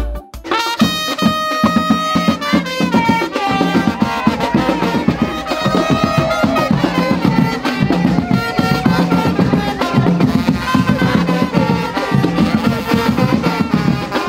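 Brass band music with trumpets and drums, starting about half a second in after a brief break.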